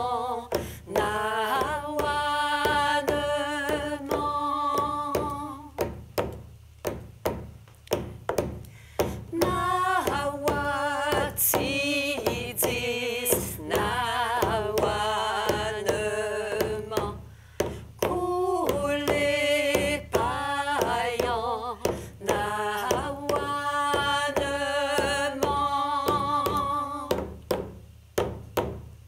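Women singing with hand frame drums, the rawhide drums struck with beaters in a steady beat of about two strokes a second. The singing comes in phrases, and the drum carries on alone in the short gaps between them.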